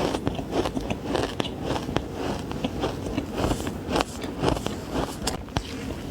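Teeth biting into frozen green matcha ice, giving powdery crunches: a quick, irregular run of crisp cracks and crackles, bunched in clusters.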